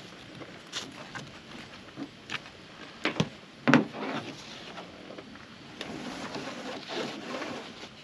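Nylon strap webbing being pulled loose through a cam buckle and dragged over a plastic kayak hull on a truck rack, rustling and scraping, with two sharp knocks a little after three seconds in.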